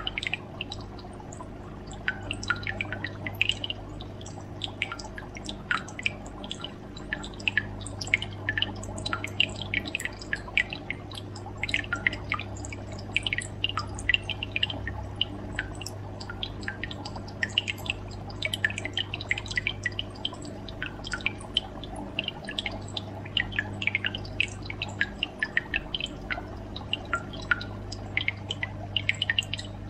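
Quick, irregular water drips and bubbles over a steady low hum.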